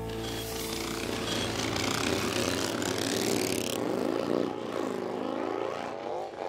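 Rushing noise of a passing vehicle, loud at first and fading gradually toward the end, with the swirling sweep of a pass-by about four to six seconds in.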